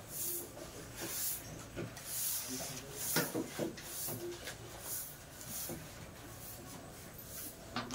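Faint, repeated rubbing and scratching, with a couple of light knocks about three seconds in.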